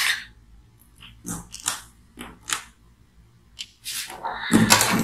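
Wire insulation being cut and stripped from the thin coloured leads of a soldering iron cable: a sharp snip at the start, then four short snipping and scraping strokes, followed by louder handling noise of the cable near the end.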